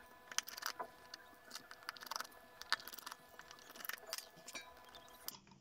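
Faint, irregular small clicks and scrapes of a precision screwdriver working the tiny case screws of a GoPro Hero 7 Black action camera during disassembly.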